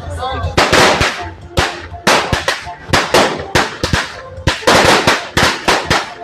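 New Year's fireworks and firecrackers going off: a dense, irregular run of sharp bangs, several a second, some bunched close together.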